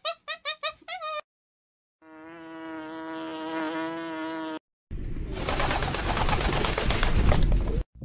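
A monkey's short squeaky calls, about six in quick succession, for the first second. Then honeybees buzzing in one steady droning tone for about two and a half seconds, followed by a louder rushing noise that runs until just before the end.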